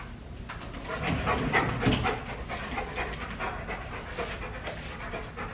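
Large dog panting, a quick run of short breaths.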